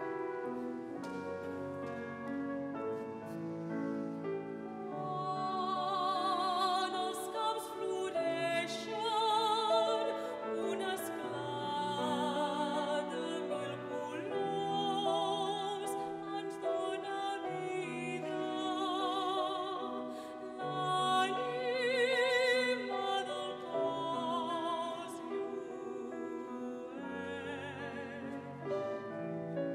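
Soprano soloist singing an oratorio aria with a wide vibrato, accompanied by a small classical orchestra with strings. The voice comes in about five seconds in, after a short instrumental passage.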